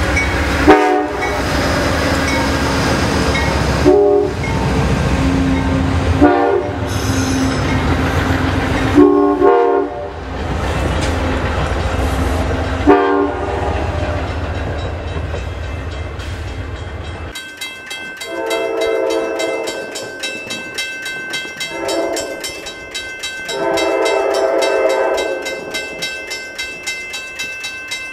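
Amtrak passenger train passing at speed: a loud steady rush of wheels and wind with a knock every few seconds as the cars go by. After about seventeen seconds the rush stops and a distant train's horn sounds several blasts while a grade-crossing bell rings rapidly.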